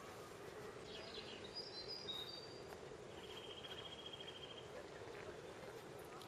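Faint outdoor ambience: a few quick high chirps of small birds, then a short rapid trill, over a steady low hum.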